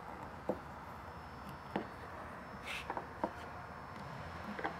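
Light clicks and taps, about five spread over a few seconds, with a brief rustle near the middle: the rubber fuel filler gasket and the Jeep's fuel filler neck and collar parts being handled and pressed into place.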